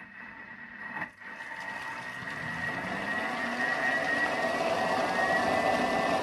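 Thermomix motor starting at speed 5 and turning the blade through hot water in the mixing bowl: a click about a second in, then a whir that grows louder and rises in pitch over a few seconds before holding steady.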